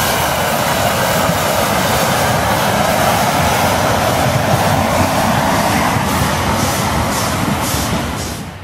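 Two narrow-gauge steam locomotives working a train past, a loud steady rush of steam with faint regular exhaust beats in the later seconds, dropping away sharply near the end.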